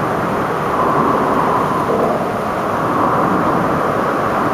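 Steady rushing water noise, rain falling with the canal's water, even and unbroken.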